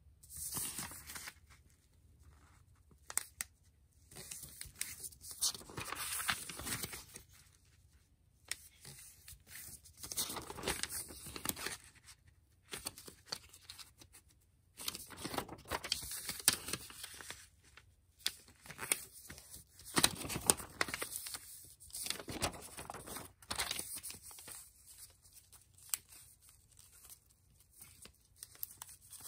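A thin sheet of kami origami paper being folded by hand: irregular spurts of rustling and sliding as the sheet is moved, with sharp crinkles and clicks as fingers press the creases, broken by short pauses.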